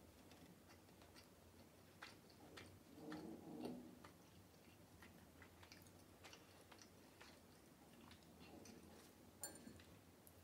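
Faint chewing of small open sandwiches of bread and goat cheese, with scattered soft clicks of mouth and toothpicks, a little louder for a moment about three seconds in.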